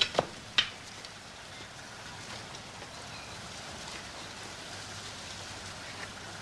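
Three sharp knocks in the first second, then a steady hiss.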